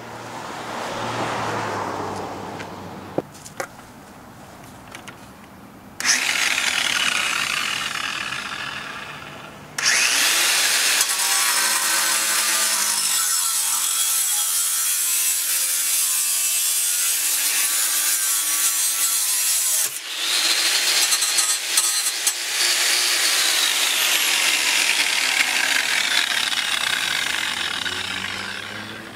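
Power tool cutting through a BMW 428i's stock steel exhaust pipe, briefly run up at first, then cutting in long loud stretches from about six seconds in, louder from about ten seconds, with a short break about twenty seconds in.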